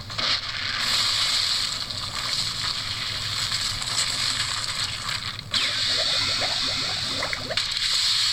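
Missile and explosion sound effects from an animated fight, played through a television's speakers: a loud, steady hissing rush that breaks off briefly about five and a half seconds in, then carries on.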